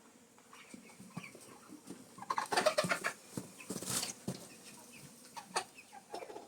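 Broiler chickens clucking with many short calls, with a louder, noisier flurry of activity in the middle.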